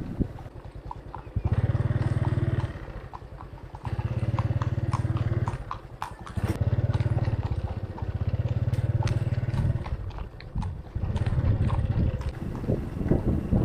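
A horse walking, its hooves clopping in a steady run of short knocks, with four loud low rumbling stretches of a second or two each over them.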